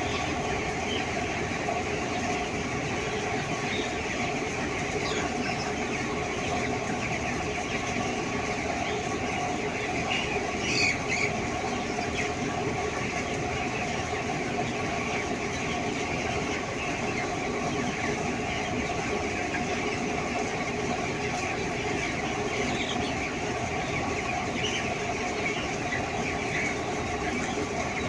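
Large flock of broiler chickens in a poultry shed: a dense, constant chatter of peeping and clucking over a steady hum, with one slightly louder call about eleven seconds in.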